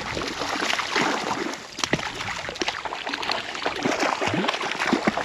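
A hooked trout thrashing at the surface of a shallow creek, throwing irregular splashes over the steady rush of running water.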